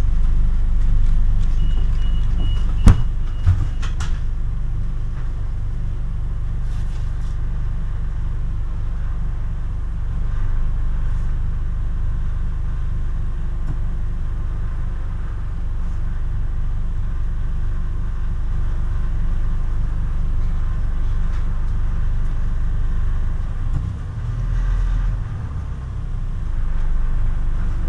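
Scania CN280UB city bus with its Scania DC9 nine-litre engine, heard from inside the cabin: a steady low rumble of engine and running gear. About two seconds in a short high beep sounds, ending in a sharp knock followed by two lighter knocks.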